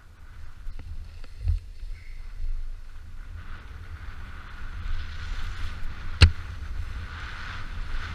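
Snowboard sliding through powder snow, a hiss that thickens from about three and a half seconds in, over wind rumbling on the microphone. A sharp knock comes about six seconds in, with a smaller one earlier.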